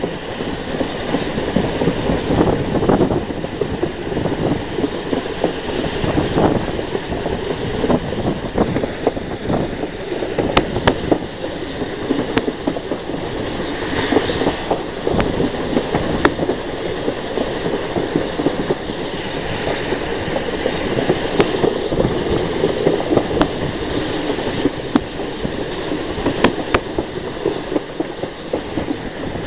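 Steam-hauled train running, heard from a carriage window behind a rebuilt Battle of Britain class steam locomotive: a steady rumble of wheels and engine, with sharp clicks here and there.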